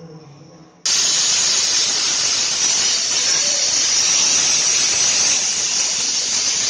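Pressure cooker whistling: a faint steam hiss, then about a second in the weight lifts and a loud, steady, high-pitched jet of steam blows out. This is one of the whistles that are counted to time the cooking.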